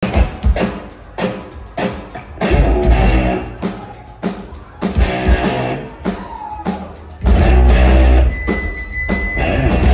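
Live rock band playing electric guitar, bass guitar and drum kit through a stage PA, with regular drum hits. About seven seconds in, the low end swells up loud, and a brief high steady tone sounds near the end.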